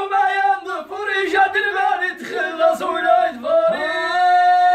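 Men's voices singing a chanted verse together, with no instruments heard; the line settles near the end into one long held note.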